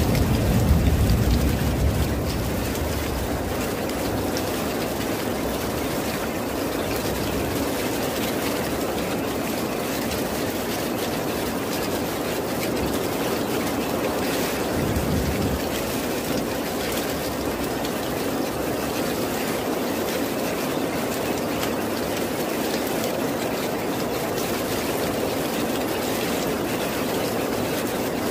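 Steady rain, an even hiss, with a low rumble of distant thunder in the first two seconds and a fainter one about fifteen seconds in.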